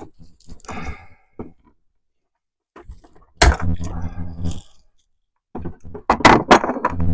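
A person's voice in short, wordless sighs and grunts, with a sharp thunk about three and a half seconds in.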